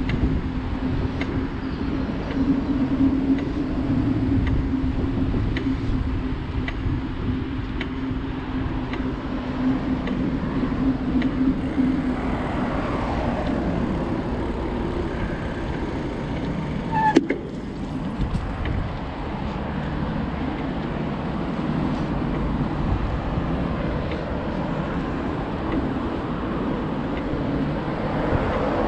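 Steady road-traffic noise from cars on the adjacent multi-lane road, mixed with the rumble of a bicycle rolling along a paved path. Faint ticks come about once a second through the first half, and a single sharp click falls about two-thirds of the way through.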